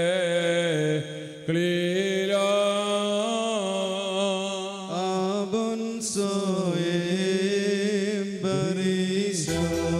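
A solo voice chants a slow liturgical crowning hymn, holding long, wavering notes. Near the end a fuller instrumental accompaniment with a deep bass comes in.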